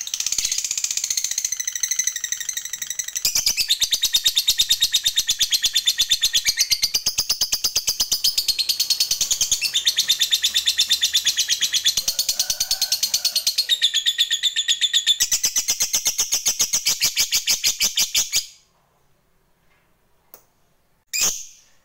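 Lovebird ngekek: a long, rapid chattering trill of sharp high notes, about ten a second, kept up for some eighteen seconds before stopping abruptly. This is the prized long ngekek of a lovebird in full song. A single short call follows near the end.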